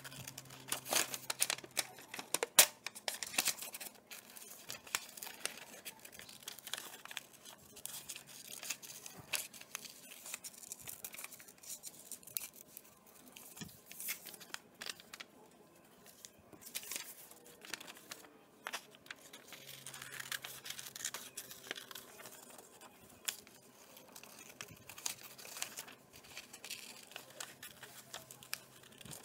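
Scissors snipping through a paper worksheet in irregular runs of short cuts, with the paper rustling as the sheet is turned and handled. The cutting goes quieter for a few seconds about halfway.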